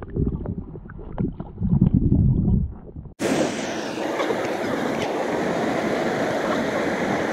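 Muffled sound of a camera held underwater, a low churning with a few knocks. A little over three seconds in it cuts abruptly to the loud, steady rush of a waterfall pouring into a rock pool.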